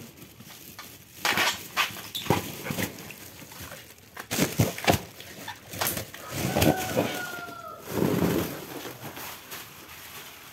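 Thin plastic fish bags crinkling and crackling as they are handled and opened in quick, irregular bursts. An animal calls with a drawn-out note in the background a little past the middle.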